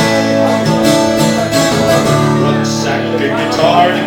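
Music: an instrumental passage of a country-style song, acoustic guitar chords strummed steadily.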